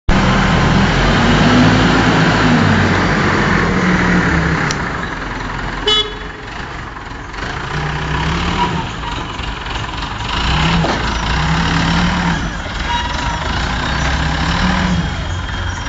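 Godrej forklift engine running, its pitch rising and falling several times as it revs while the clamp and mast carry and lift a paper roll. The sound breaks off abruptly with a brief click about six seconds in, then the engine carries on.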